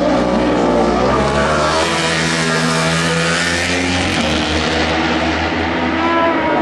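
Racing engines at high revs on the circuit, heard from trackside, their pitch gliding up and down; near the end one vehicle passes close and its pitch drops.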